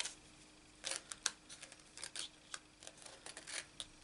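Thin metal cutting dies, nested circle and scalloped-circle dies, clinking and sliding against each other as they are sorted by hand: a string of light, irregular clicks starting about a second in.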